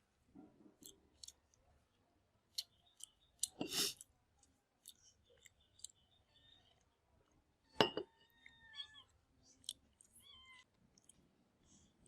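Close-up eating sounds: chewing, lip smacks and scattered clicks of food being handled, with two louder sharp smacks about four and eight seconds in. A faint, short, wavering high-pitched call sounds just after the second smack and again about ten seconds in.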